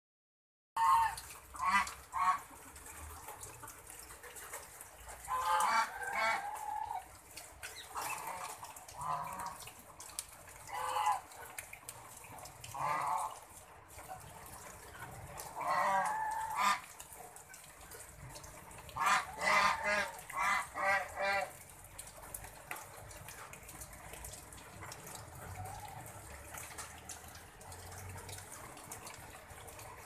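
Half-sider budgerigar giving harsh squawking calls while held in a hand, one every few seconds, then a quick run of five or six about two-thirds of the way through, after which it falls quiet.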